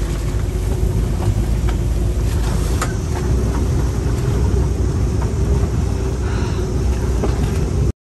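Strong wind buffeting the microphone in gusts, with a steady low hum underneath; it cuts off suddenly just before the end.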